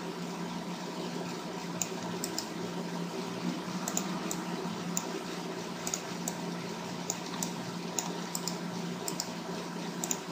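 Scattered computer mouse and keyboard clicks, about a dozen at irregular intervals, over a steady electrical hum and hiss.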